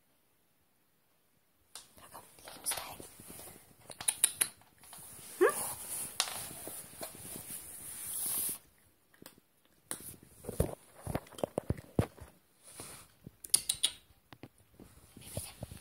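A Maine Coon cat moving about on the floor, with scattered clicks, rustling and one short rising creak. In the later seconds come sharp crunches as it eats dry kibble off the floor.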